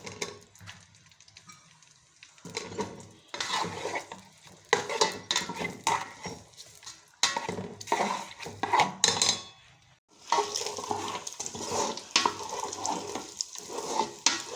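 Liver frying in hot vegetable oil in a pot, stirred with a metal spoon that clinks and scrapes against the pot. It is quiet for the first couple of seconds, the clatter of stirring starts, and after a short lull about two-thirds of the way through the sizzling comes on steadier.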